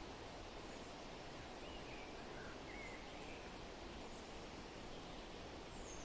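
Steady wind blowing, an even soft rush with no gusts, with a few faint bird chirps about two to three seconds in and another near the end.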